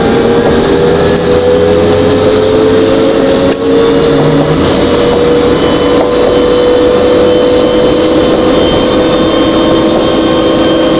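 Electric traction motor of a New Flyer E40LFR trackless trolleybus whining as the bus drives along, with road and body noise heard inside the cabin. The whine rises a little over the first few seconds, then holds steady.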